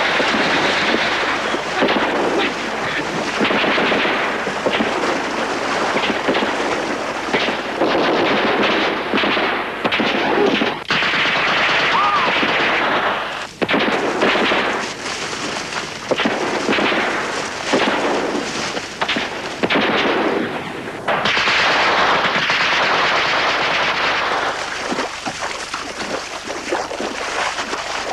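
Heavy gunfire: rapid machine-gun bursts mixed with rifle shots, almost without pause, thinning out near the end.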